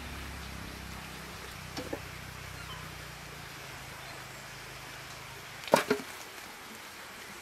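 Picked fruit dropping into a pail: two sharp knocks close together near the end, after a few faint snaps of twigs. A faint low hum runs underneath and dies away just before the knocks.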